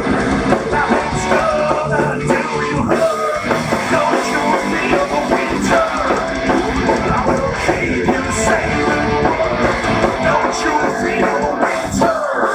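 Live rock band playing loud over a concert PA: electric guitar and drum kit, with a singer.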